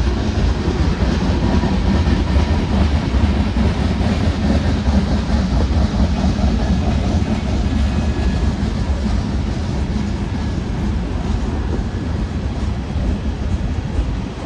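Freight cars of a Union Pacific manifest train rolling past, making a steady, loud rumble of wheels on rail.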